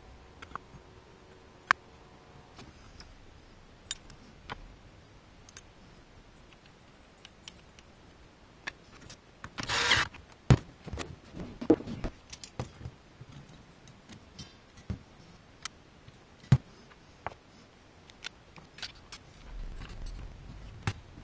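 Metal clutch parts clinking and knocking as a motorcycle clutch basket, hub and holding tool are handled and fitted, with one brief burst from a cordless power driver running the clutch hub nut onto its shaft a little before halfway.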